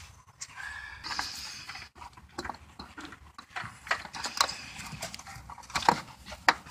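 Irregular plastic clicks, knocks and rubbing as a 2004 Toyota Sienna's front bumper cover is handled and pressed into place against the body, with a brief squeak about half a second in.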